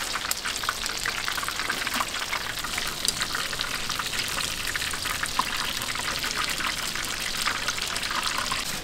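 Battered twigim deep-frying in a vat of hot oil: a steady, dense sizzle with a rapid crackle of small pops.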